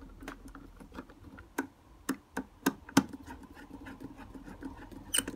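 Irregular sharp clicks and taps of a small insulated screwdriver working the screw terminal on a consumer unit's neutral bar as a neutral conductor is put back in and tightened. The loudest click comes about three seconds in.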